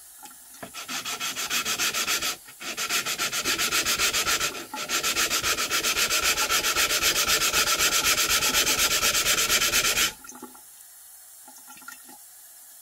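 Cast-iron sole of a Stanley No. 9 1/4 block plane lapped back and forth on wet sandpaper under running tap water, flattening the sole. The strokes are fast and regular, about five a second, with two brief pauses. They stop about ten seconds in, leaving only the faint hiss of the running water.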